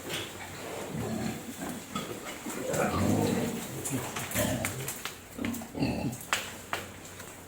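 Pigs grunting several times, low and rough, with a few sharp clicks near the end.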